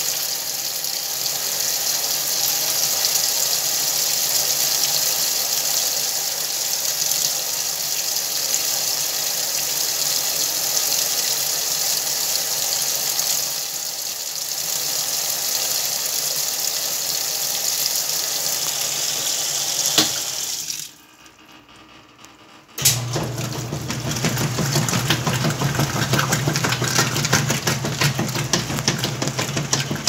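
Whirlpool top-load washing machine filling: water pours into the tub in a steady rush. About twenty seconds in it drops out for a couple of seconds, then a steady low motor hum and the agitator churning water through the load take over.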